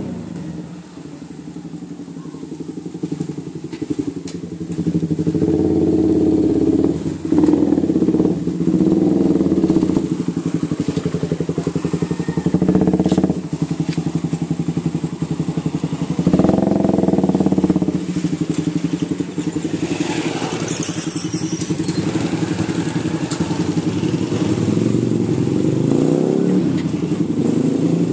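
Suzuki Raider 150 motorcycle engine with a black slip-on muffler, idling and revved in several short bursts.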